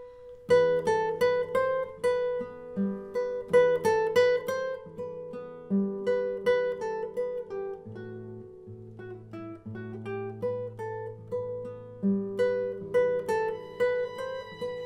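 Classical guitar played solo, fingerpicked: a slow melody of plucked, ringing notes over bass notes, with one low bass note held for a few seconds in the middle.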